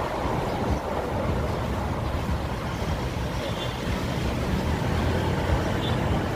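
Steady road traffic noise from cars and pickup trucks driving along a multi-lane city road, with a constant low rumble.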